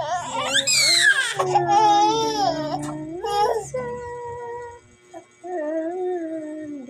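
Infant crying in shrill, pitch-bending wails for about three and a half seconds, then a slow, steady sung melody takes over.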